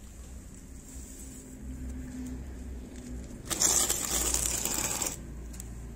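A rustling, crackling noise lasting about a second and a half, starting a little past halfway, over a low steady hum.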